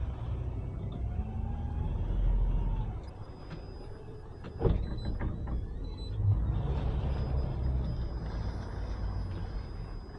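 Boat's outboard engine running at low speed, getting louder about six seconds in as it is throttled up to pull away, churning the water. A single sharp knock comes a little before halfway.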